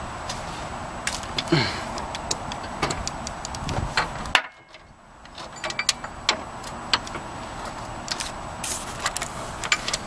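Irregular metal clicks and clinks of a 14 mm wrench on a steel alternator mounting bolt and bracket as the bolt is worked loose, over a steady hiss that drops out for about a second midway.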